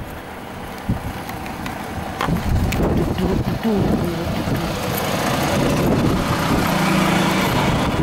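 Tour coach's diesel engine idling close by, a steady rumble that grows louder about two seconds in.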